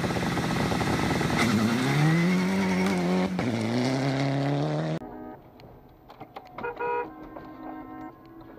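Mitsubishi Lancer Evolution rally car's engine revving hard as it accelerates away on gravel, its pitch climbing and stepping at a gear change. About five seconds in it cuts off abruptly to a much quieter car sound with faint ticks.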